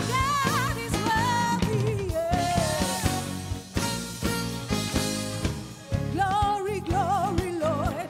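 Live gospel praise music: a female lead singer sings with a wavering vibrato over a band of drum kit, keyboards, acoustic guitar and bass guitar. The voice drops out for a couple of seconds in the middle while the band plays on, then comes back near the end.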